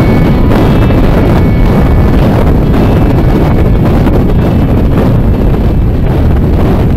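Heavy wind buffeting on a bike-mounted camera's microphone, loud and steady, as a bicycle descends at about 65 km/h.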